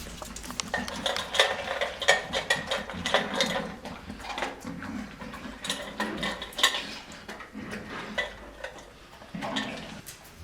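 Irregular light clicking and clattering of small hard objects, many sharp clicks scattered through.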